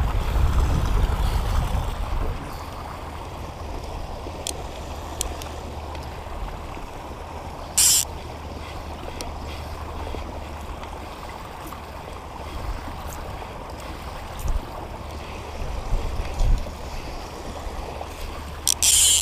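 Steady rush of creek water flowing through a rock chute, with a low rumble in the first two seconds and two brief hissing swishes, about eight seconds in and near the end.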